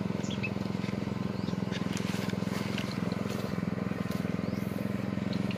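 Engine of a motorized crop sprayer running steadily with a rapid, even pulse, left on after spraying. Faint high chirps come and go over it.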